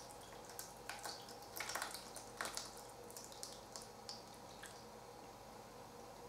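Pumpkin pie filling pouring from a glass measuring jug into a pastry case: faint drips and splats that thin out and stop after about four and a half seconds.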